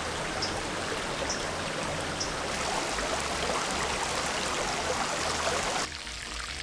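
Shallow stream running over rocks, a steady rushing of water, with a faint short high chirp about once a second in the first couple of seconds. The water sound drops off abruptly near the end.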